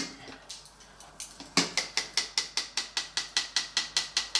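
Rapid, even tapping on a sieve, about five taps a second, starting about a second and a half in: flour and cocoa being sifted into a mixing bowl.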